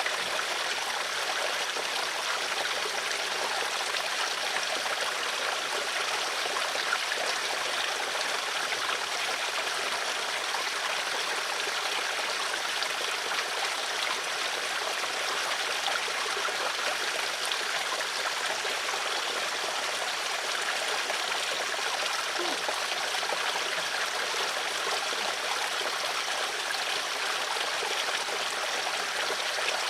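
Water flowing steadily in a stream, a constant rushing and trickling.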